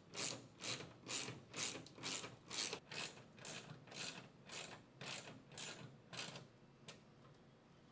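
Hand tool driving #14 lag screws into wall anchors with a repeated ratcheting stroke, about two a second, growing fainter and stopping with a last click about a second before the end.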